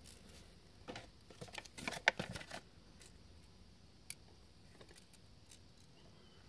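Handling noise from plastic 20x magnifying eyeglasses: a run of small clicks and rattles as the frame and arm are worked, starting about a second in and loudest around two seconds, then one more click near four seconds.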